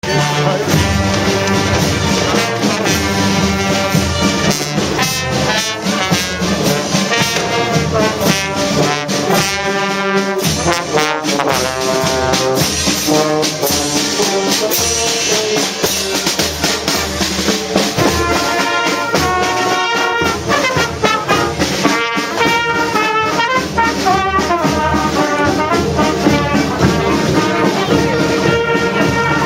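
Brass band playing a tune, trombones and trumpets carrying the melody.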